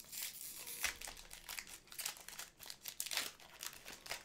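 A trading card pack's wrapper being torn open and handled, crinkling in quick, irregular rustles.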